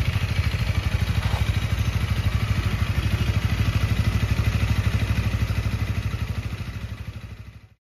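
Honda Rebel 250's single-cylinder four-stroke engine idling steadily, with an even beat of exhaust pulses. The sound fades away near the end.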